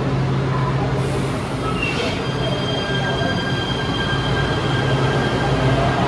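LA Metro light rail train in an underground station: a steady low hum, a burst of hiss about a second in, then a high steady whine or squeal that sets in about two seconds in and holds.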